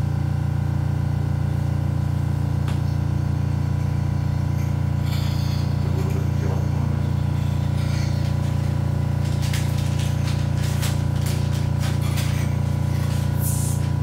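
A steady low hum with several overtones, unchanging throughout. Several light clicks and taps come in the last few seconds, with a brief high hiss near the end.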